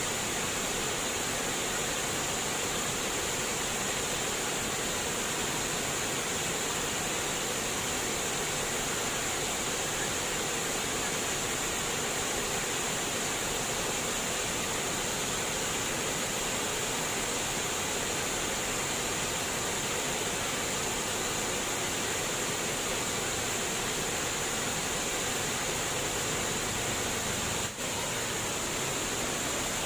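Running water splashing and rushing steadily, an unbroken even hiss. It drops out briefly once near the end.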